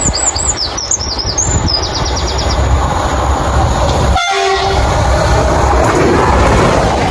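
Passing train rumbling along the rails, with high warbling squeals in the first two seconds; about four seconds in, a short train horn blast, then the rumble again.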